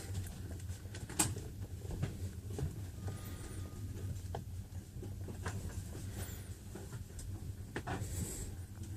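Steady low hum inside a passenger train carriage, with scattered faint clicks and knocks.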